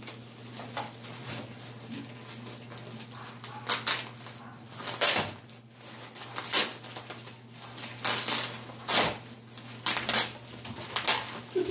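Clear plastic wrapping on a large rolled-up umbrella crinkling and rustling in irregular crackles as hands grip and pull at it.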